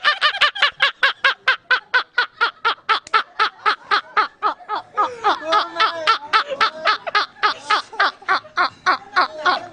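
A person laughing hard and without a break: a long run of rapid, high-pitched laugh pulses, about five a second, dipping briefly into lower voiced sounds about halfway through before carrying on.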